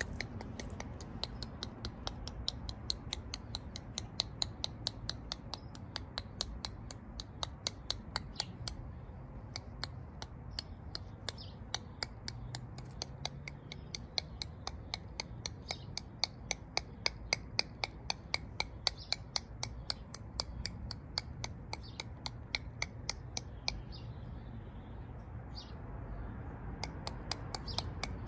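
A wild rabbit chewing, heard close up as runs of crisp crunching clicks, about three to four a second, that stop briefly now and then. A low steady hum runs underneath.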